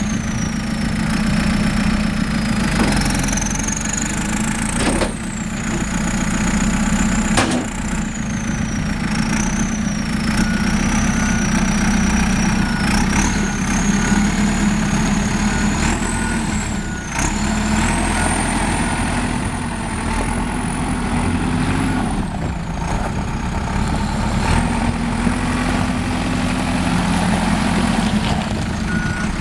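Diesel engine of a JCB 3CX backhoe loader running, its note shifting as it works, with a high whine that rises and falls and a few sharp knocks. An intermittent beep sounds for several seconds in the middle and again near the end.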